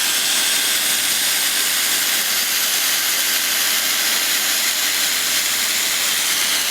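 CAPS C101 through-the-hole 1/4-inch air ratchet running steadily on a bolt: a continuous loud hiss of compressed air driving the air motor.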